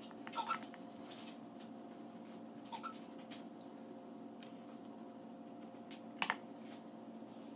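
A few light clicks and taps of plastic Play-Doh toy pieces being handled, over a faint steady hum; the sharpest pair of clicks comes a little after six seconds.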